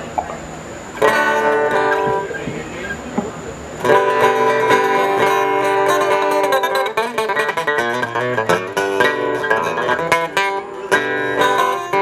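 Acoustic guitar music with no singing. A chord rings out about a second in, then a long run of quick picked notes follows.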